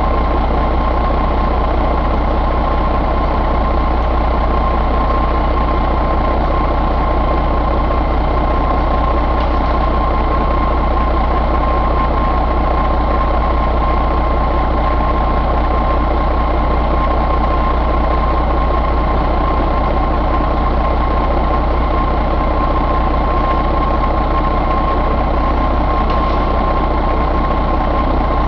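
2007 Mercedes-Benz MBE4000 inline-six diesel engine running steadily at idle, with a steady high whine alongside the low rumble.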